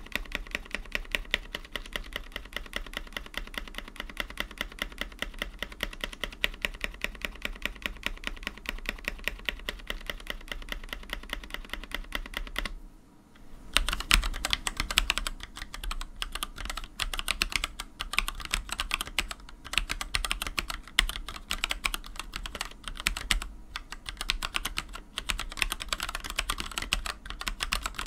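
Mechanical keyboard with Gateron Black linear switches in a full acrylic case (Monstargear Ninja 87 Arc XD) being typed on. For roughly the first half, the stabilized keys are pressed over and over in a fast, even rhythm. After a pause of about a second, both hands type in an irregular run of slightly louder keystrokes.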